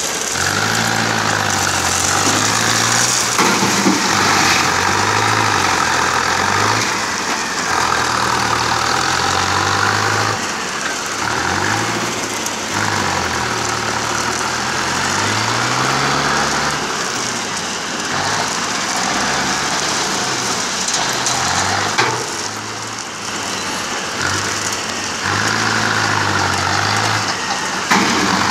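Mahindra tractor's diesel engine working a front loader, its speed rising and falling again and again as the bucket is raised, lowered and driven. Two sharp knocks stand out, one about two-thirds of the way through and one near the end.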